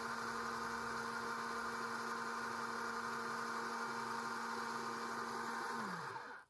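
Electric oil extractor pump running with a steady hum and whir as it draws engine oil up through a tube in the dipstick tube. Near the end it is switched off, and its pitch drops as the motor winds down before it stops.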